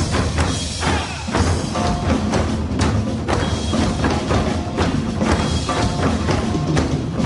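Percussion-driven music: rapid, dense drum and wood-block strikes over an accompaniment with held pitched notes.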